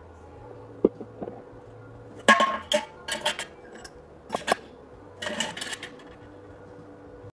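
Steel pieces clinking and knocking as square steel tubing, a steel try square and a homemade fence-spacer tool are set down and positioned against each other. A single sharp knock about a second in, then several short bursts of metallic clinks.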